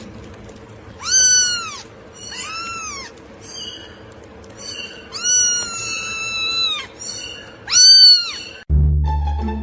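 A cat meowing four times in high, arching calls; the third is long, about a second and a half.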